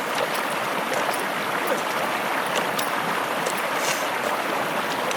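Water running steadily, a constant rushing like a stream, with a few faint ticks over it.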